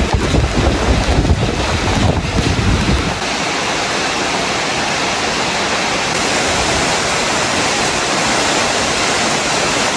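Heavy rain pouring down in a steady hiss, with wind buffeting the microphone in the first three seconds or so.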